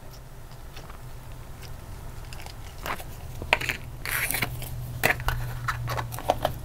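Slime being handled and pulled from its plastic tub: irregular crackles, squelches and clicks, busier in the second half.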